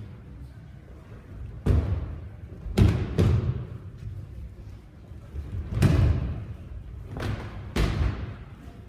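Bodies slapping down onto padded dojo mats as practitioners are thrown and take breakfalls: about six heavy thuds at irregular intervals, with a short echo in the hall.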